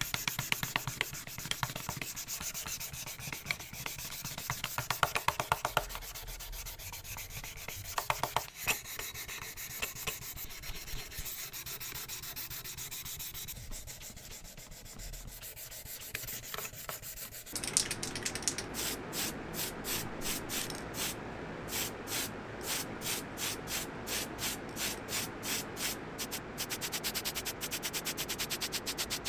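A sanding pad rubbed back and forth over the bare metal of a diecast model car body, a dry scratchy scraping. About two-thirds of the way through it gives way to a run of short hissing puffs, about two a second, as paint is sprayed in bursts onto small parts.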